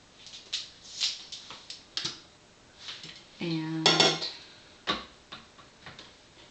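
Handling clatter of lab gear on a countertop: electrode probes, a thermometer, a glass and plastic containers knocking and clinking as they are picked up and set down, in a run of irregular clicks and knocks with the loudest clatter about four seconds in.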